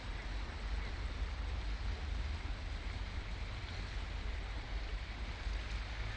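Steady rush of floodwater surging out of a road drain and flowing across the street, with wind buffeting the microphone as a low rumble.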